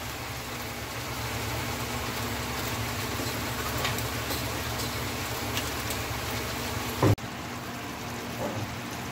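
Pak choy and okra sizzling in a hot pot with vinegar just poured over them: a steady hiss with faint crackles. It cuts off abruptly about seven seconds in with a brief thump, and a quieter steady hiss follows.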